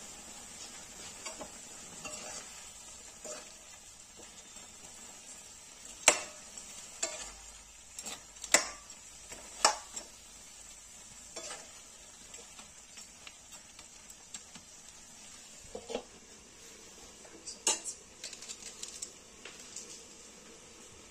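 Noodles and vegetables sizzling in a metal kadhai while a steel spoon stirs them, scraping and clinking against the pan; the loudest clinks come about six and eight and a half seconds in. Near the end a few more metal clinks as a steel lid goes on the pan.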